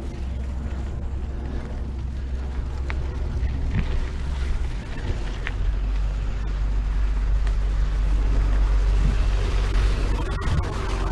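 Wind rumbling on the microphone of a camera carried on a mountain bike ride, with trail noise and a few light clicks. It grows louder about halfway through.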